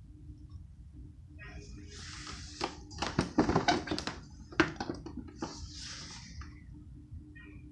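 Electric table fan humming steadily, with a run of sharp clicks and knocks from about two seconds in until about five and a half seconds, as of the fan being handled or its controls worked.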